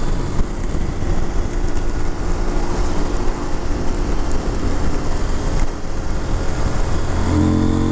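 CFMOTO Ibex 800's parallel-twin engine running steadily at road speed under constant wind rush and tyre hiss on a wet road. Near the end the engine note grows louder.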